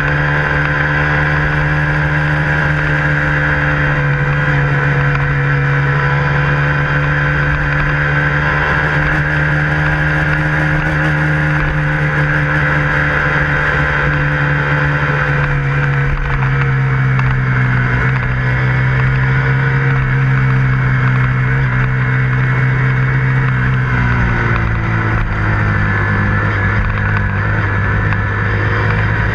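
KTM Duke 125's single-cylinder four-stroke engine running steadily while riding, its note dropping in pitch twice: about halfway through and again near the end.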